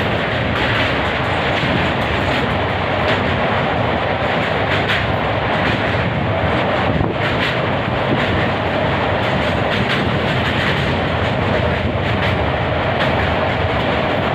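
Passenger train running over a steel truss bridge, heard from an open carriage doorway: a loud, steady rumble and rattle of wheels on the track, with a few faint clacks.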